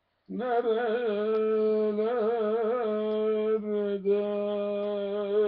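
A man singing long drawn-out notes with no accompaniment, with wavering melismatic turns about half a second in and again around two seconds, a brief break near four seconds, then a steady held note.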